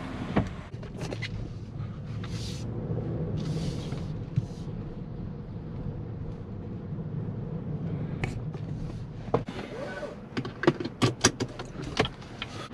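Steady engine and road hum inside a moving car's cabin, with a few short hissing swishes early on and a run of sharp clicks and taps over the last few seconds.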